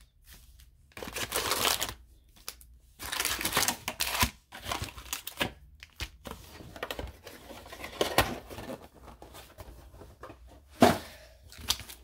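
Plastic wrapping on a hockey-card hobby box tearing and crinkling as the box is opened by hand. Irregular bursts of rustling and small clicks, with one sharp knock about eleven seconds in.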